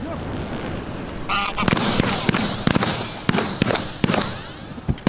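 A short honk, then from under two seconds in a rapid volley of about a dozen shotgun shots from several guns firing together at geese coming in to the decoys, each crack followed by a short echo.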